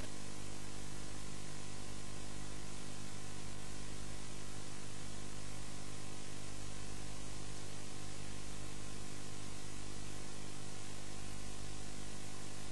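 Steady electrical hum with an even hiss over it, unchanging and without music.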